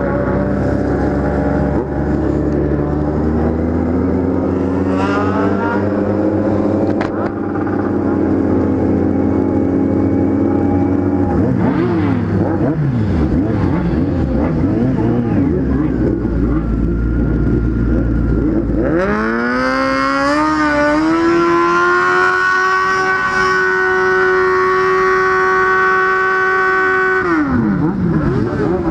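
Motorcycle engine running on the road, its pitch rising and falling as the throttle is opened and eased. About two-thirds of the way through it climbs quickly to a high steady pitch, holds it for several seconds, then drops away near the end.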